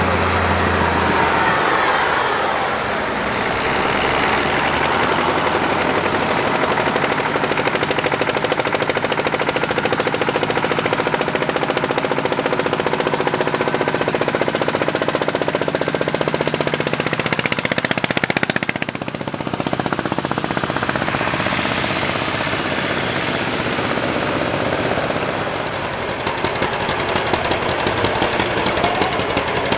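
Vintage engine running with a rapid, even popping beat, with a brief dip about two-thirds of the way in and the beat sharper near the end.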